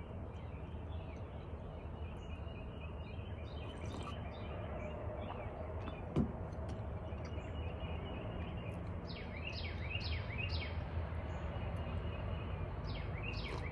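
Outdoor background noise, a steady low rumble, with a songbird calling in quick runs of short chirps, one run about nine seconds in and another near the end.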